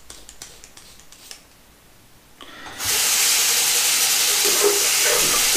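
Bathroom tap turned on about two and a half seconds in, water running steadily into the sink basin, after a few faint scrapes.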